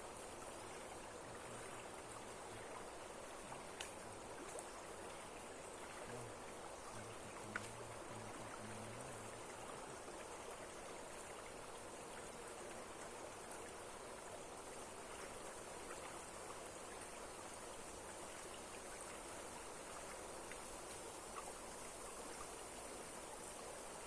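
Steady rush of flowing water from a waterfall or fast stream, with a couple of faint clicks.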